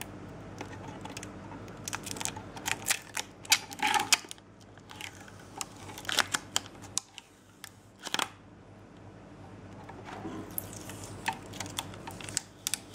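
Clear protective plastic film being peeled off a Radeon RX 480 reference graphics card's shroud: irregular crackling and crinkling clicks, coming in clusters with short pauses between.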